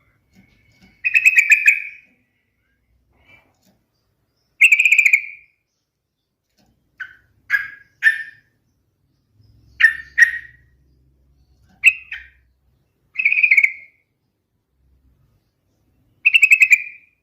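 Yellow-vented bulbul (trucukan) singing: loud, bubbly, rapidly warbled phrases of about a second, alternating with short clipped notes, repeated every few seconds.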